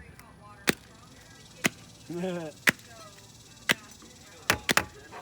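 Small fireworks going off: about seven sharp, separate pops at irregular intervals, three of them in quick succession near the end. A brief voice sound about two seconds in.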